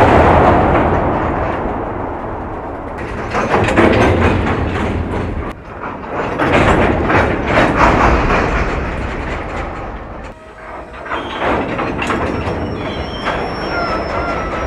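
Slow-moving freight train's cars with slack running through the couplers: repeated clanks and bangs rippling along the cars over steady rumbling of wheels on rail, starting on the fading tail of a heavy bang.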